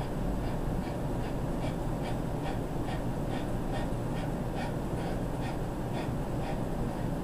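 A man breathing hard in quick, even puffs, about three a second, as he strains through a slow leg-press repetition. A steady low room hum runs underneath.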